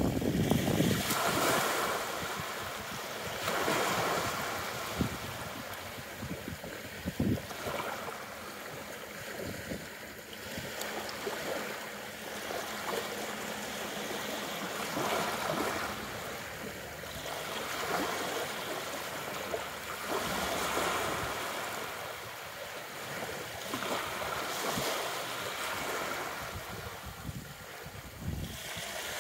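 Small waves lapping and breaking on a sand-and-pebble shore, the wash swelling and fading every few seconds.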